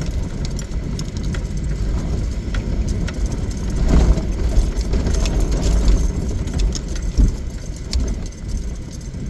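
Vehicle driving over a rough dirt trail, heard from inside the cab: a steady low engine and tyre rumble with rattling and a few heavier jolts over bumps.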